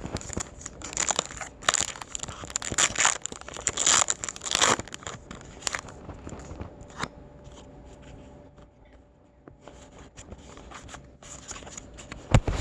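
Foil booster pack of trading cards being torn open and crinkled, a dense run of crackles and tearing for the first five seconds, then sparser, quieter rustles and clicks as the cards are handled.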